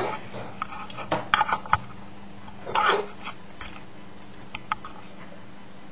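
Handling noise of a camera being moved about against cloth: a few short knocks and clicks in the first two seconds and a brief rustling scuffle about three seconds in, over a faint steady hum.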